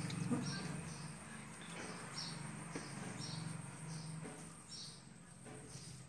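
Quiet mealtime sounds: faint clicks of hands and a small steel bowl on steel plates, with short high squeaks repeating about every half second.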